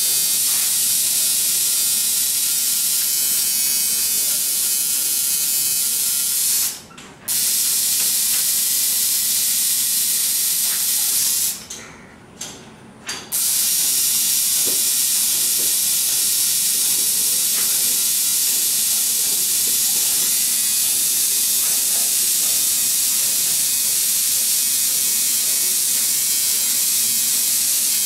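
Electric tattoo machine running steadily as it works on skin, a high hissing buzz. It stops briefly about seven seconds in, and again for about a second and a half around twelve seconds in.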